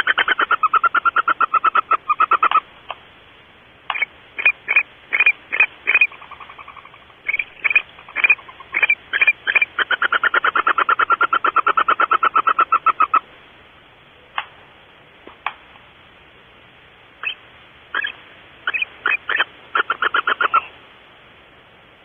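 Barn owl calling: rapid trains of short chittering notes, sometimes over a steady tone, in several bouts with pauses between. A few single notes fall in the gaps.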